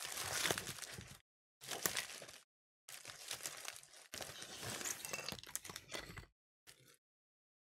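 Plastic packaging crinkling and crackling in four longer bursts and a short last one as it is handled and pulled open.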